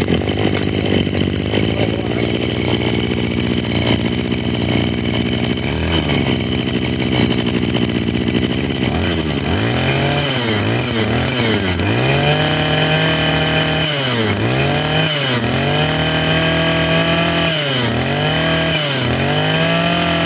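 Small 23cc two-stroke brush cutter engine, just started, idling evenly, then revved up and down about a dozen times from roughly nine seconds in by hand on the throttle.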